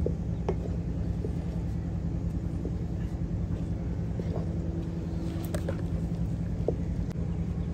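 A wooden stirring stick working stiff dough in a metal saucepan, giving a few faint knocks and scrapes against the pan, over a steady low rumble.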